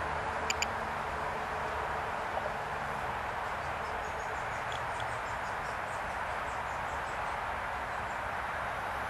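Steady outdoor background noise, with a quick double chirp about half a second in and faint, short, high chirps like small birds through the middle.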